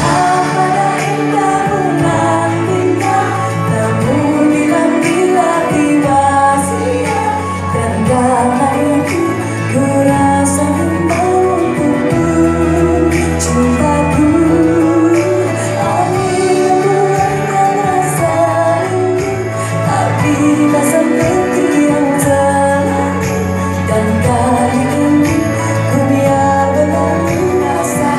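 A woman singing live into a handheld microphone over amplified pop backing music with a steady bass line and light jingling percussion.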